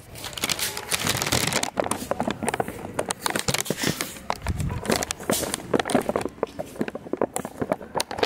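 Hurried footsteps on a concrete floor mixed with rubbing and knocking from a phone handled on the move: a dense, irregular run of clicks and knocks, with a low thump about four and a half seconds in.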